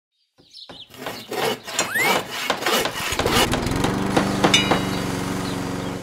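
A quick montage of toy and household sound effects. Clicks and knocks, a short rising whistle about two seconds in, then a steady buzzing motor drone like a small mower or power tool from about three seconds, with sharp knocks over it.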